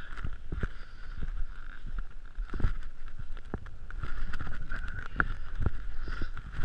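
Electric motor and propeller of a Sky Surfer v5 RC plane, a steady high whine that swells and fades as the plane flies, with wind rumble and occasional knocks from the coat-mounted microphone.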